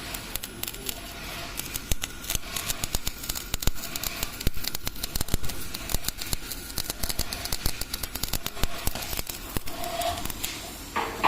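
Flux-cored arc welder laying a weld, the arc giving a steady, dense crackle of irregular clicks.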